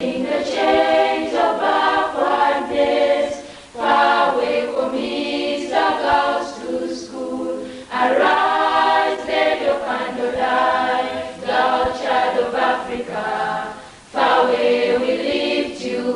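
A choir singing a cappella in long phrases, with short breaks about four, eight and fourteen seconds in.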